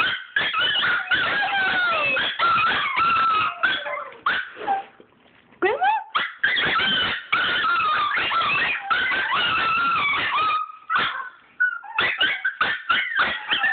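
Chihuahuas whining and yelping in excitement: high-pitched cries that slide up and down in pitch, broken by quick yips, with brief pauses a little before five seconds and about eleven seconds in.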